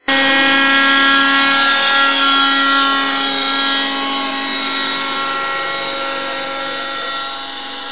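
Homemade helicopter's motor running at a steady, unchanging pitch: a continuous whine with many overtones that starts abruptly and slowly eases in loudness.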